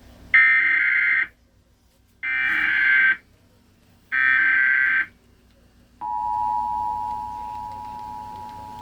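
Emergency Alert System tornado warning opening: three bursts of buzzing SAME digital header data, each about a second long, with about a second between them. About six seconds in, the steady two-tone EAS attention signal begins.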